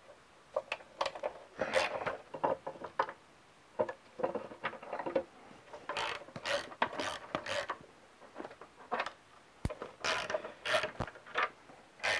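Small hand ratchet clicking in short, irregular runs as 5 mm hex screws are backed out of a motorcycle fork lower. A couple of sharp single clicks come near the end.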